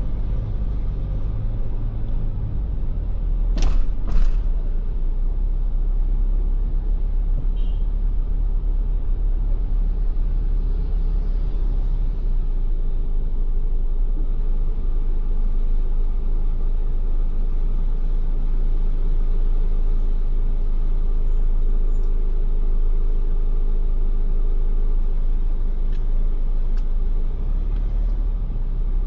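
Steady low rumble of a Ford Everest SUV heard from inside the cabin while driving, with two sharp knocks close together about four seconds in.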